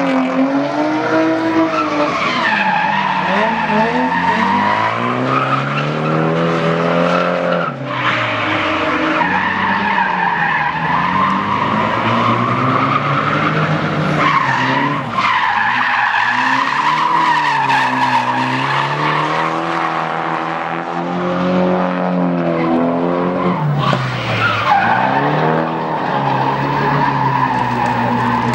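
Drift cars, a Nissan 350Z and a Nissan Silvia S14, sliding on the throttle: engines revving up and falling back over and over, with tyres squealing almost without a break.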